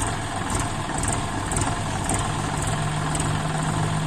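John Deere tractor's diesel engine running steadily at idle while its tipping trolley is raised. About two seconds in, a steady low hum joins the engine sound.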